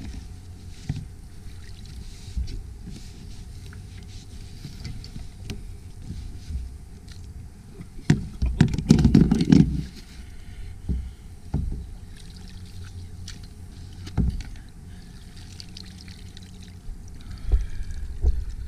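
Water sloshing and splashing around a kayak, with scattered light knocks; a louder burst of splashing lasts about two seconds, some eight seconds in.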